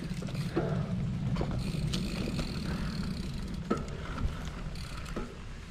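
Mountain bike rolling along a dirt trail: a steady low rumble of the tyres over the ground, with scattered clicks and knocks from the bike rattling over bumps.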